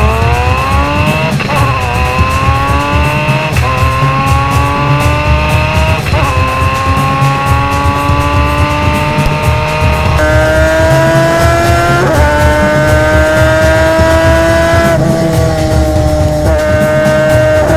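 Race car engine heard onboard at high revs, its pitch climbing slowly under power with brief dips at gear changes every few seconds, over steady road and wind rumble.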